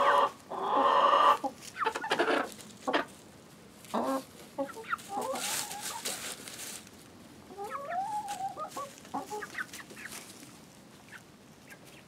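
Hens clucking in short calls, loudest about a second in, with a drawn-out call near the two-thirds mark that rises and falls in pitch.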